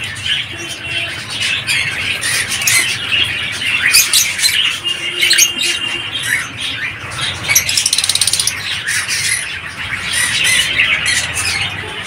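A colony of African lovebirds, Fischer's and masked lovebirds, chattering with many short shrill chirps and squawks, with a rapid buzzy rattle near the middle.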